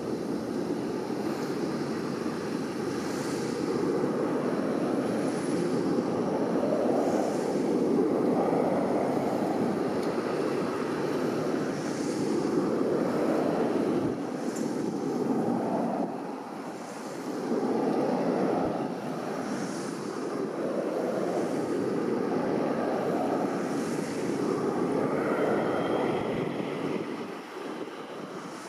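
A steady rushing noise that swells and eases every few seconds.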